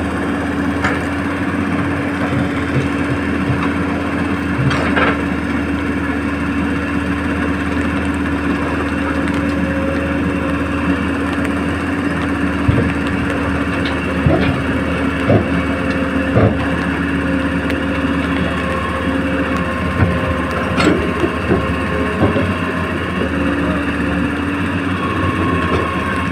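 Small electric motors of a Huina 1535 RC excavator running with a steady whine. The pitch shifts and extra tones join about two-thirds of the way through, and scattered sharp clicks and knocks come from the working arm and bucket.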